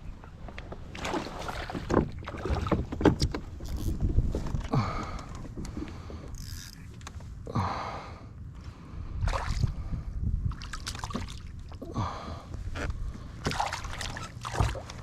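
Water splashing and slapping around a kayak in a series of irregular surges, over a steady low rumble of wind on the microphone.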